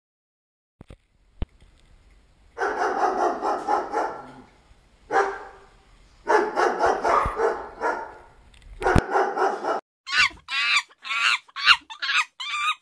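A dog vocalizing in four long, drawn-out bursts, then about six short, high-pitched whines near the end.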